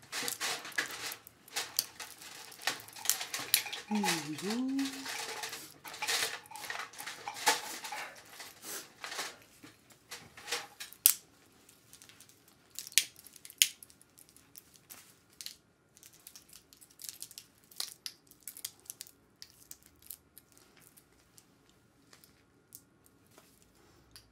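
Makeup brushes and small metal tools clicking and clinking together as they are handled, with dense, quick taps for the first ten seconds or so, then sparser single clicks.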